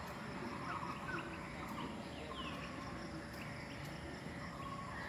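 Several birds calling at once: scattered short chirps and quick falling whistled notes, over a steady low background rumble.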